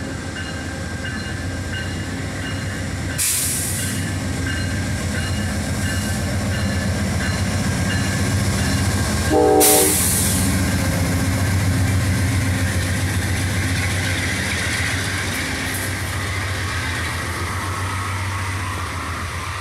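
Amtrak GE P42DC diesel locomotive and its passenger cars rolling past, the engine's drone and the rumble of the train swelling as the locomotive passes about halfway through. A short horn blast sounds about nine seconds in, and a brief hiss about three seconds in.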